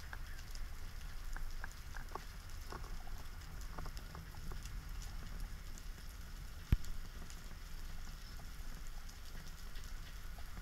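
Underwater ambience heard through a camera housing: a steady low rumble of moving water with faint scattered clicks and crackles, and one sharp click a little past the middle.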